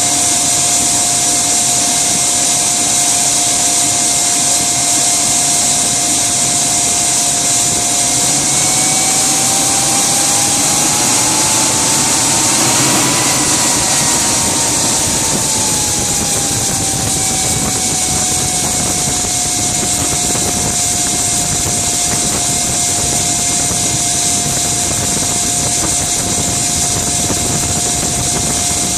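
Gas turbine engine of a Rover Jet 1 recreation, burning kerosene, running with a steady whine over a loud hiss. A little over a third of the way in the whine climbs in pitch for several seconds as the turbine spools up, then sinks back to its earlier note as it spools down.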